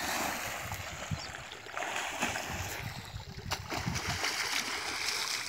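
River water splashing and sloshing around people swimming and bathing in it: a steady rushing hiss broken by scattered small splashes.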